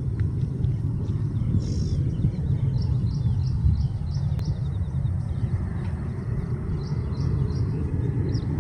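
A steady low rumble with small birds chirping in short, quickly repeated calls.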